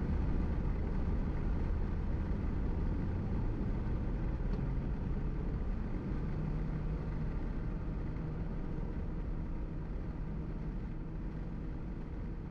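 Steady road and engine noise of a car being driven. A low steady hum joins about halfway through, and the overall level slowly eases off.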